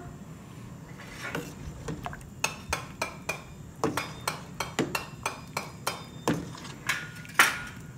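Metal ladle clinking and knocking against the sides of a stainless steel pot while stirring hotpot broth. The strokes come a few times a second, unevenly, with a short metallic ring, the loudest near the end.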